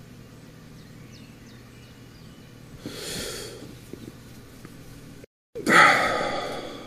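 A man's heavy breathy sigh about three seconds in, over a low steady hum. After a brief drop-out near the end, a louder drawn-out vocal sound that fades away.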